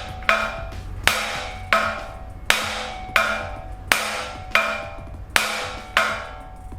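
Hammer blows on steel driving a seized old front wheel bearing out of its steering knuckle. There are about ten strikes in a steady rhythm, roughly three every two seconds, each ringing briefly.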